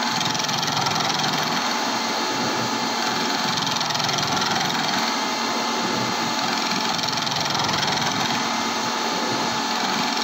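End mill turning in a CNC milling machine spindle and cutting a counterbore into a metal workpiece: a steady machining noise with a constant high tone running through it.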